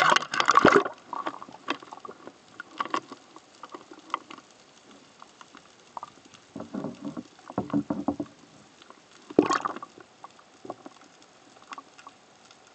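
Splash of a woven basket fish trap going over the side of a dugout canoe into the sea, then muffled underwater sloshing and knocking with scattered small clicks, and another loud splash about nine and a half seconds in.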